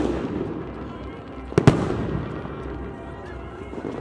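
Fireworks shells bursting in the sky: a sharp bang about one and a half seconds in, following the dying tail of a bang just before, each fading away over a second or two.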